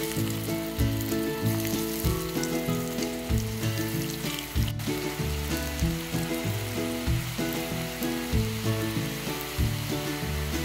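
Breaded eggplant bites deep-frying in hot oil, a steady sizzle, with background music of held notes and a bass line playing over it.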